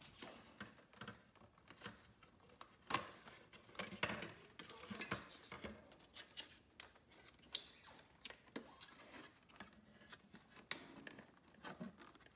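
Irregular light clicks and plastic rattling, with a few sharper snaps, as hands work the clips and wiring connector loose behind a refrigerator's water-dispenser front panel.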